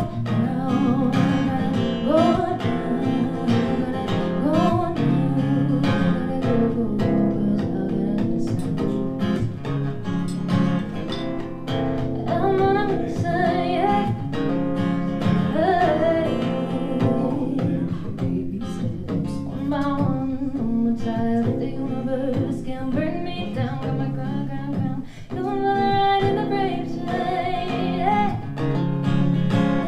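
Acoustic guitar strummed along to a woman singing a song of her own.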